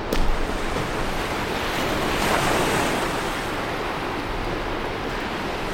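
Steady rush of water, surf or falling water, with wind buffeting the microphone; the rush swells around two to three seconds in.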